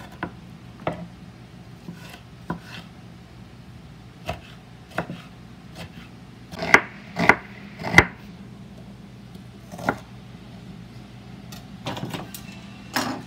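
Kitchen knife dicing tomato on a wooden cutting board: irregular sharp knocks of the blade against the wood. The loudest are three strikes in quick succession about two-thirds of the way through.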